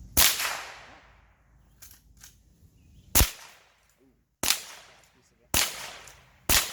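Gun fired five times at about one-second intervals after an opening pause, each shot sharp with a fading echo. Faint clicks come between the first and second shots.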